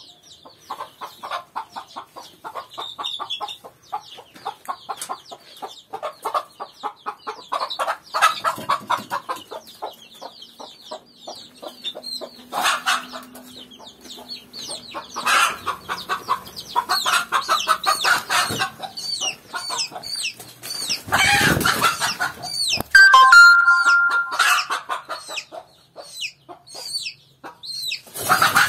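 A broody mother hen clucking defensively over her chicks, with the chicks peeping in many short high chirps. About three-quarters of the way through there is a loud flurry as she puffs up and goes on the attack, then a drawn-out squawk.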